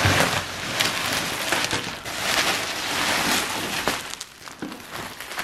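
Bubble wrap and plastic packaging rustling and crinkling as a wrapped package is pulled out of a cardboard box, dying down about four seconds in.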